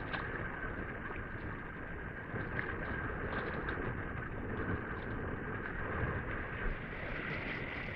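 Steady wind and sea noise: small waves washing against a rock breakwater, with wind on the microphone.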